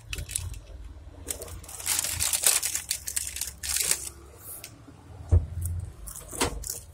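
Handling noise from a wet mobile-phone circuit board being turned over in the hands: irregular clicks and rustling, with a stretch of hiss in the middle and a louder knock about five seconds in.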